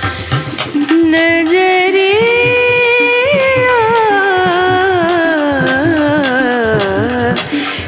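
Background music, an Indian-style song. A long melodic line is held and then slowly slides down in pitch over a steady percussion beat.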